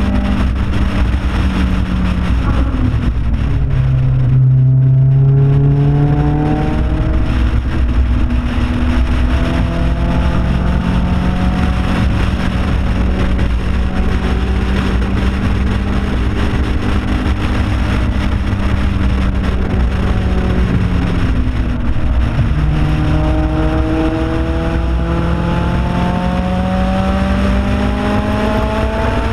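Car engine running hard on a race track, heard through heavy wind buffeting on an outside-mounted camera. Its pitch falls a few seconds in as the driver lifts off, climbs again, holds steady for a long stretch, then dips and rises once more near the end.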